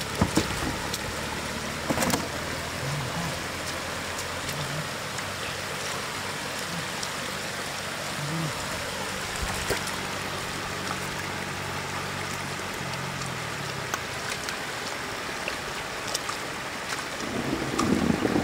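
Shallow floodwater running steadily across a road surface, with a few sharp splashes from fish flapping and boots wading in the water.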